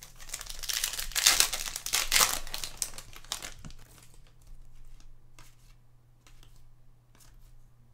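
Trading-card pack wrapper crinkling for about three seconds, then a few light clicks as the cards are handled and flipped.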